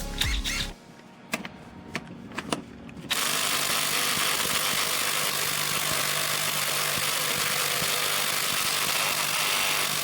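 A cordless 1/2-inch impact wrench hammers continuously for about seven seconds, starting about three seconds in. It fails to break loose a bolt torqued past 250 foot-pounds. A few light clicks of handling come before it.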